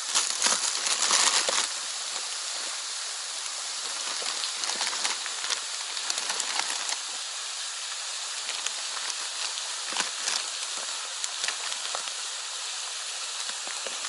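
Plastic lure bags and soft-plastic worm packets crinkling and rustling as hands rummage through a tackle box. The crinkling is loudest in the first couple of seconds, then turns to lighter scattered crackles over a steady hiss.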